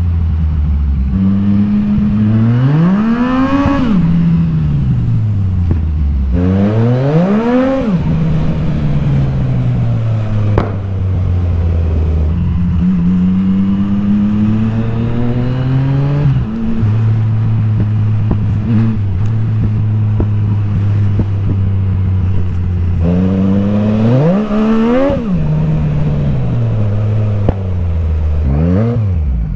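Motorcycle engine under hard throttle. The revs sweep sharply up and drop back four times, with steadier running between that climbs slowly through the middle.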